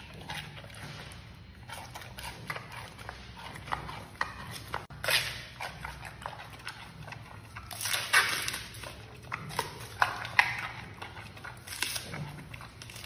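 Giant panda biting and chewing bamboo shoots: irregular crisp snaps and crunches, with louder bursts of crunching about five, eight and ten seconds in.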